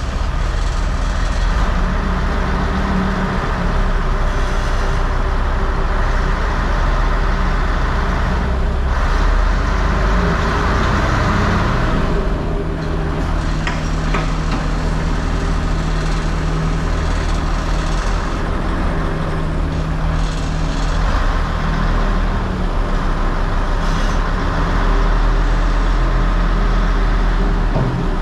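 A large engine running steadily at a constant speed, its note changing slightly about halfway through.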